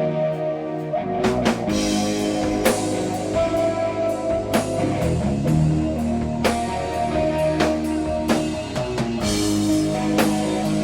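Doom metal band playing live with no vocals. A sustained electric guitar plays alone, then drums and bass come in about a second in and the full band plays on with heavy guitar chords and steady drum hits.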